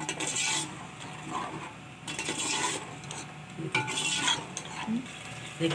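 Metal ladle stirring chickpeas in a thin sauce in a metal pot, scraping and clinking against the pot in several separate strokes.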